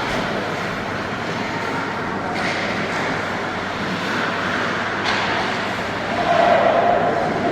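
Ice rink game ambience: a steady echoing wash of skating and play noise. About six seconds in, a held mid-pitched tone joins and the sound grows a little louder.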